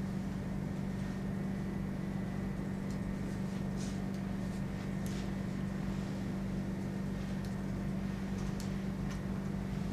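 Steady low room hum, with a few faint scattered clicks of a laptop keyboard being typed on.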